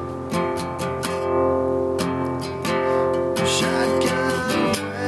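Guitar strummed in a steady rhythm, chords ringing between the strokes.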